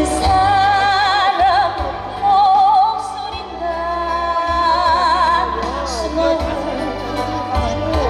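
A woman singing a Korean ballad live into a hand microphone, holding long notes with wide vibrato, over a backing track with a steady bass line.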